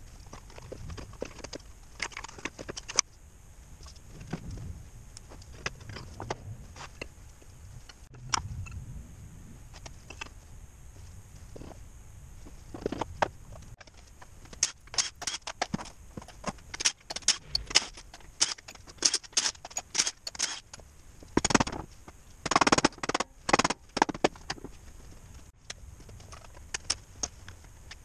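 Metal internal parts of a JATCO JR403E automatic transmission being pulled from the case and set down on a steel workbench: irregular clinks, knocks and scrapes. They are sparse at first and come thick and sharp in the second half.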